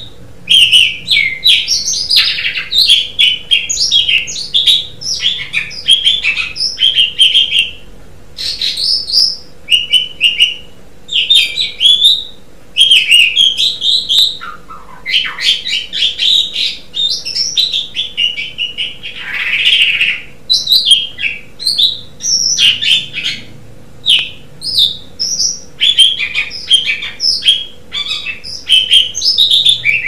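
Asian pied starling (jalak suren) singing: fast, varied chattering and whistled notes in short bursts with brief pauses between them, over a faint steady hum.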